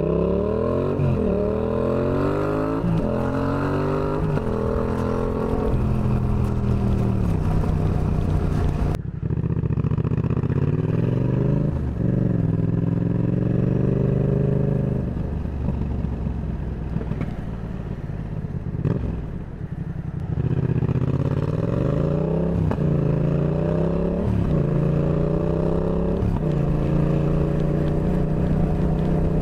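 Yamaha XSR700's 689 cc parallel-twin engine through a Shark SRC 4 aftermarket exhaust, under way and accelerating through the gears: the pitch climbs and drops back at each upshift, several times. In the middle it runs quieter at lower revs, then pulls up through the gears again.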